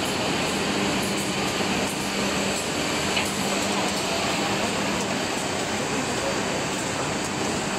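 CNC router with a linear tool changer and drilling head running over a board panel: steady mechanical noise with a low hum that fades out about five seconds in.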